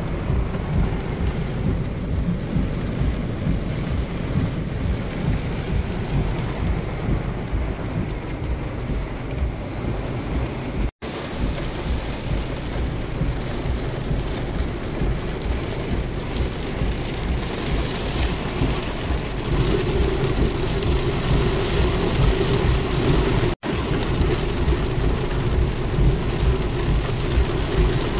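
Heavy rain pelting a car's roof and windows, heard from inside the car: a steady, dense patter over a constant low rumble. The sound cuts out for an instant twice.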